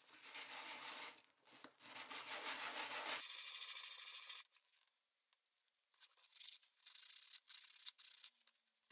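A baked salt dough pendant being sanded by hand on a sheet of sandpaper: faint rubbing strokes, a pause about halfway, then a second spell of shorter strokes.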